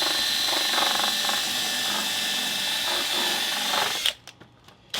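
Cordless DeWalt hammer drill running wide open with a steady high whine, then cutting off about four seconds in. The motor has lost its power and is smoking as its brushes burn out.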